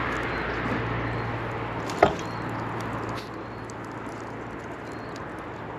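Wood fire crackling, with one sharp, loud pop about two seconds in. A low steady hum in the background stops about three seconds in.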